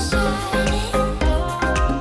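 Background music with a steady drumbeat, bass line and melody.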